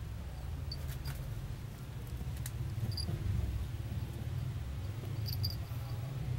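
Brown tabby American Shorthair cat purring close up: a steady low rumble. A few faint high clicks are scattered through it.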